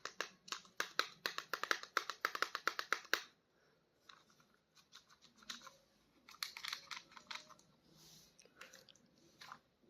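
Plastic toy packaging being handled and opened: a quick run of crackling clicks for about three seconds, then softer, scattered crinkling and rustling.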